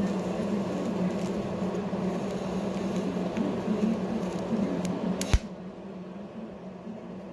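TIG welding arc on stainless steel, a steady buzzing hum with hiss. It cuts off with a sharp click about five seconds in, leaving a quieter background.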